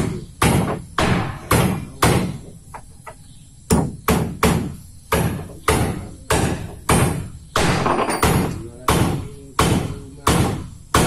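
Repeated hammer blows, about two a second, each sharp strike ringing briefly; the hammering pauses for a second or so after the first few blows, then goes on steadily.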